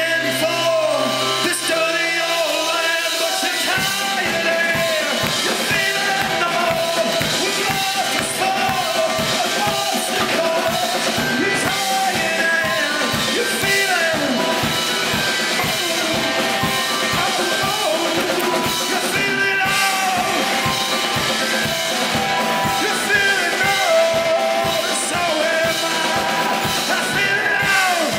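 Live rock band: a man sings loudly over keyboards, and about four seconds in a steady drum and bass beat comes in under the vocal.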